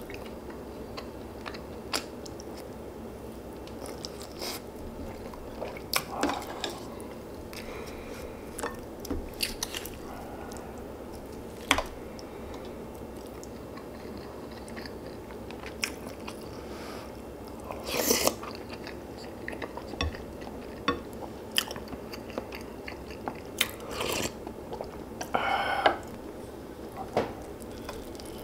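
Close-miked eating: chewing and crunching mouthfuls, with scattered sharp clicks of utensils against the dishes.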